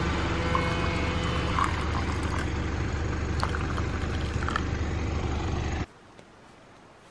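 Hot water pouring from a kettle into a mug over a steady, low engine-like hum. A few small clinks sound along the way. The hum cuts off abruptly near the end, leaving faint open-air background.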